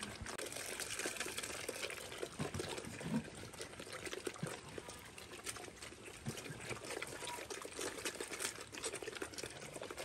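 Several black piglets eating wet bran mash from a wooden trough: a steady run of wet chewing and slurping.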